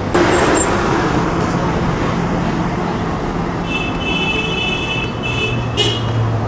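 City street traffic: motor vehicle engines running with a steady hum. A brief high-pitched tone sounds about four seconds in, and a sharper one just before the end.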